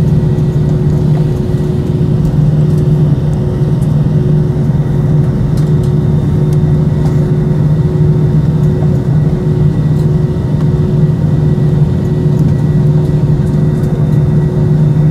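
Loud, steady jet engine and airflow noise inside the cabin of an Airbus A320, with a low drone and a steady hum above it.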